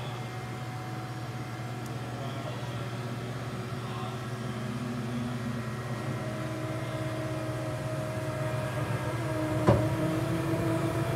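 Steady hum of a powered-up Haas VF-3 CNC vertical machining center, with a higher steady whine joining about halfway through. A single sharp knock, the loudest sound, comes near the end.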